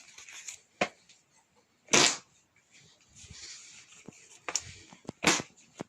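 Whoopie cushion pressed, letting out short bursts of air, the loudest about two seconds in and another a little after five seconds, with lighter clicks and rustles between.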